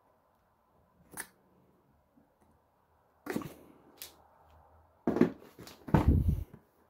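A cardboard tablet box being handled while its seal stickers are slit with a small pointed tool: a few short scratchy clicks. Near the end come dull thumps and rustling as the box is set down on a soft surface and pushed into place; these are the loudest part.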